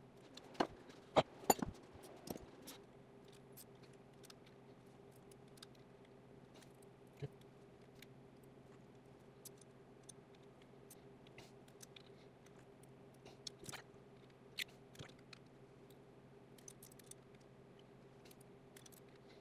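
Light metallic clicks and taps of hand tools on a Triumph TR4 four-cylinder engine's valve rocker gear: a wrench and screwdriver are setting the rocker adjusting screws and lock nuts while a feeler gauge checks the valve clearance. A cluster of sharper clicks comes in the first couple of seconds, then scattered taps, over a faint steady hum.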